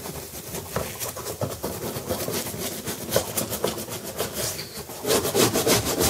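Stiff-bristled scrub brush scrubbing back and forth over a baking soda and vinegar paste on a dishwasher door's plastic detergent dispenser, a rhythmic scratchy rubbing as it works at caked-on soap buildup. The strokes get louder about five seconds in.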